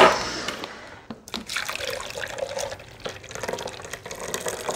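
Fruit juice streaming from a vertical juicer's spout into a glass pitcher: a trickling, splashing pour. It opens with a short knock.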